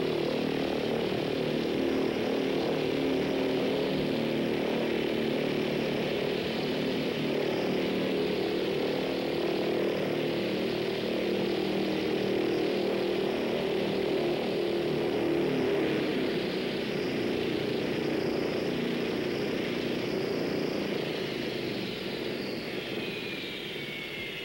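Propeller airliner's engines running steadily with the propellers turning. Near the end a whine falls in pitch as the engines run down to a stop after arrival.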